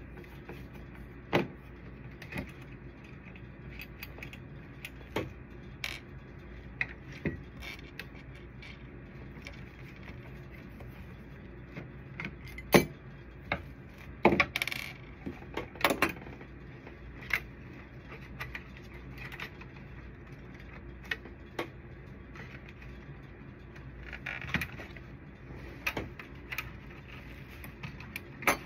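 Irregular clicks, clinks and taps of plastic and small metal parts as a copier photoconductor drum unit is taken apart by hand with a screwdriver, the loudest knock about 13 seconds in and a cluster soon after, over a steady low hum.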